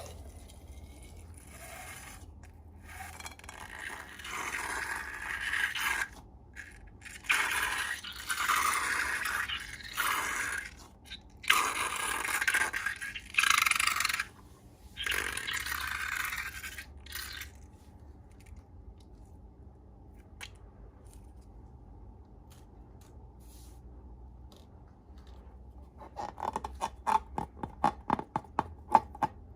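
Slime being scraped and worked by hand: a run of noisy scraping strokes for the first half or so, then a quiet stretch, then a quick run of small crackling clicks near the end.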